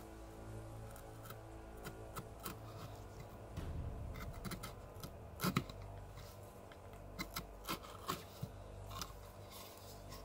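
Carving knife cutting into cottonwood bark: a series of short, dry cuts and scrapes at irregular intervals, the loudest about halfway through.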